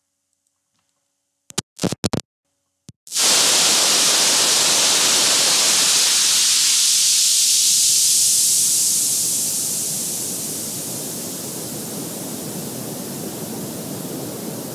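A few short crackles, then a loud, steady rushing hiss that starts suddenly about three seconds in. About halfway through it grows duller and a little quieter.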